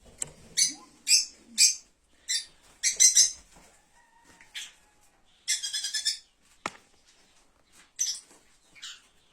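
Kakariki parakeets calling: about a dozen short, sharp, high chirps at irregular intervals, with one longer, chattering call about halfway through.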